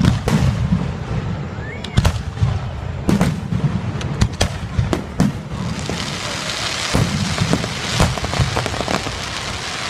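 Aerial fireworks shells bursting: sharp bangs every second or so. From about six seconds in, a dense crackling joins them, with more bangs through it.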